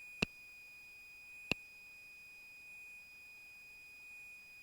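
Faint, steady high-pitched electronic tone on the cockpit intercom audio feed, with no engine noise heard. Two sharp clicks come about a quarter second and a second and a half in.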